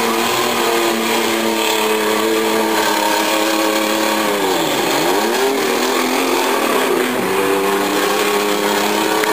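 Engines of demolition derby minivans and SUVs revving hard, a steady high-rpm note; about five seconds in one engine drops sharply in pitch and climbs straight back up.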